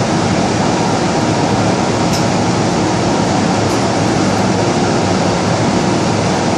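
Steady hum and hiss of an MTR M-Train standing at an underground station platform, its air-conditioning and onboard equipment running.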